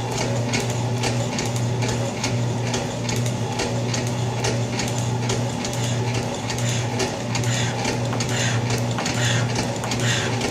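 Old Atlas metal shaper taking a roughing cut 30 thousandths deep: a steady motor hum with a rhythmic clatter and cutting noise repeating with each stroke of the ram. The cut sounds pretty good.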